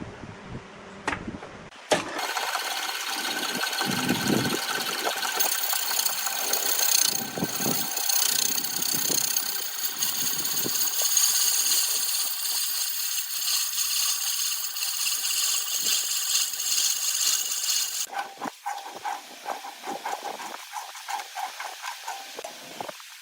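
Wood lathe running with a tool cutting into the spinning wood: a knock about two seconds in, then a loud steady whine and hiss that gives way to a rougher, pulsing cut near the end.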